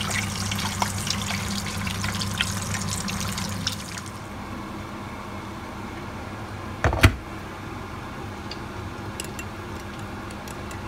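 Slices of meat frying in hot oil in a pot, a dense crackle and spatter for about the first four seconds. Then milk is poured into a mug of a hot drink, with a single loud clunk about seven seconds in and a teaspoon clinking against the mug near the end.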